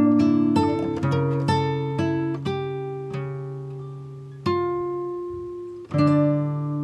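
Background music: acoustic guitar picked note by note, thinning out after a couple of seconds into single plucked notes and chords left to ring.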